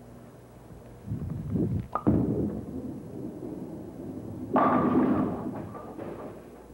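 A bowling ball released onto a wooden lane with a thud about a second in, then rolling down the lane, then hitting the pins about four and a half seconds in with a loud clatter of pins falling and scattering, fading over the next two seconds.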